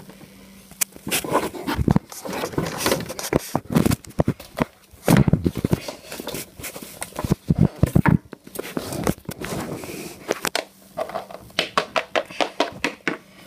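Handling noise of a phone being carried and moved: irregular rustling, crackling and light knocks.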